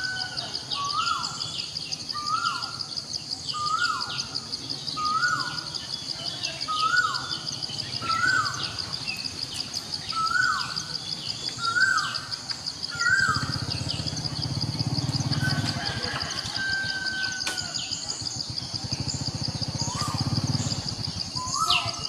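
Outdoor ambience: a bird repeats a short call about once a second for the first half, over a steady high pulsing drone. A low rumble comes in about halfway.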